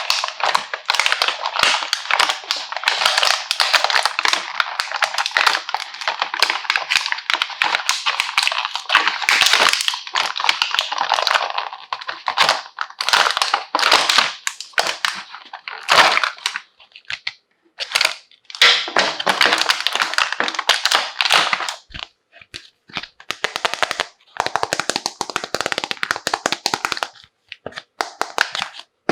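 Plastic toy packaging being unwrapped and handled, a dense crinkling rustle with many small clicks. It is continuous at first, then comes in shorter spells with brief pauses in the second half.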